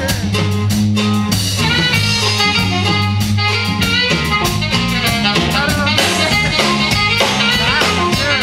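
Live norteño band playing an instrumental passage: electric bass line, drum kit and guitars, with bending melodic lines over the top.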